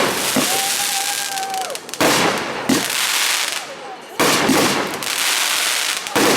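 Fireworks going off: a sharp bang about every two seconds, each followed by a crackling hiss that fades before the next.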